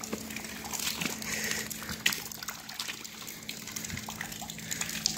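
Water dripping and trickling into the river from old pipes up in a railway trestle, an irregular patter of drops hitting the water surface. The owner takes it for groundwater seeping through the pipes.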